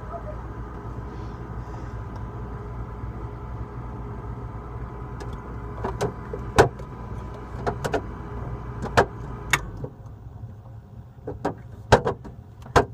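Refrigerator motor humming steadily and low, then cutting off suddenly about ten seconds in. Sharp clicks and knocks come every second or so through the second half.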